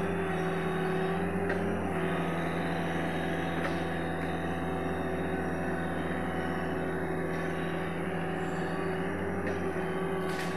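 Sany SY75C excavator's diesel engine running steadily at a constant pitch, with a few faint clicks.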